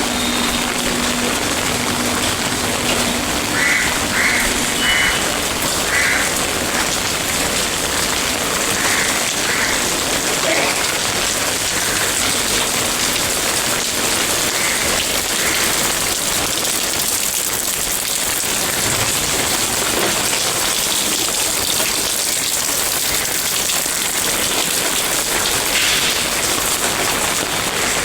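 Steady heavy rain falling and pattering on surfaces, an even continuous hiss that does not let up. A few faint short calls sound through it in the first third.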